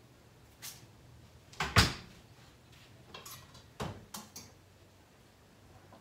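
Kitchen clatter: a few sharp knocks and clinks, the loudest about two seconds in, then a quick run of lighter clinks as a pot on the gas stove is handled.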